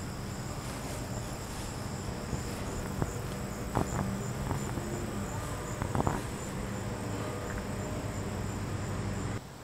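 Insects chirping steadily outdoors, a high, evenly pulsing trill, with a few faint clicks partway through.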